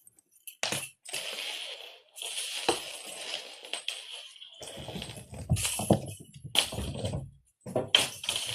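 A cat toy with a bell being batted around: irregular jingling and rattling, with dull knocks mixed in from about halfway through.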